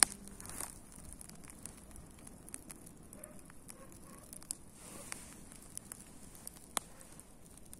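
Bonfire of boards and branches burning, crackling with scattered sharp pops and snaps over a low hiss. A sharp crack right at the start is the loudest sound, and another clear pop comes near the end.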